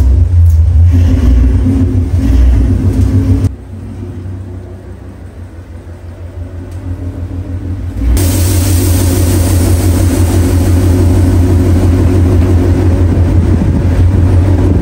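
Ford Mustang's engine and exhaust running with a deep, even pulsing rumble. It drops to a much quieter sound about three and a half seconds in and slowly grows louder, then turns loud again about eight seconds in.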